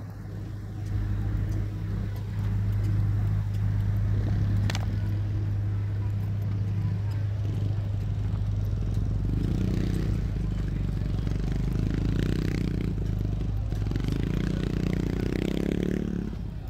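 City traffic noise: a steady low rumble of vehicles, with a motorcycle engine running close by in the second half.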